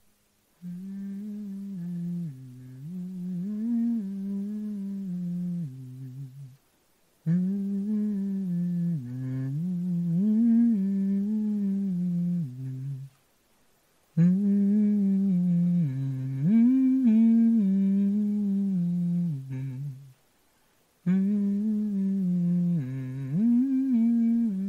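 A single voice humming a slow wordless melody, low notes held and sliding, in four phrases of about six seconds each with short pauses between them.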